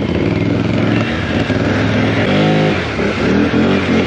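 Off-road vehicle engine under hard load in mud, revving with its pitch rising and falling twice in the second half.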